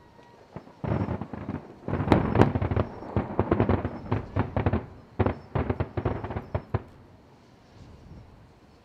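Large aerial firework shells bursting, heard as a dense run of many sharp bangs and cracks that starts about a second in and dies away about two seconds before the end.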